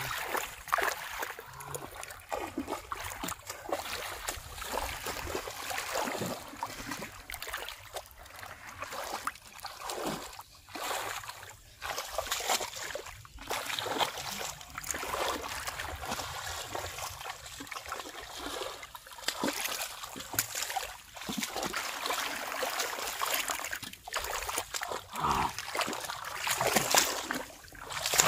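Hands splashing and sloshing in shallow muddy paddy water while groping for fish, in uneven bursts of splashes and trickles.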